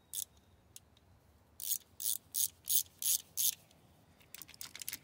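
Hand socket ratchet clicking as it is swung back and forth on a bolt: about six ratcheting strokes in quick succession, then a faster flurry of small clicks near the end.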